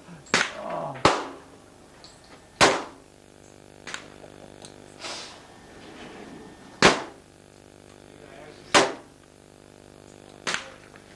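A large stainless revolver fired shot by shot, six sharp reports at uneven gaps of about one to four seconds, with fainter pops between them.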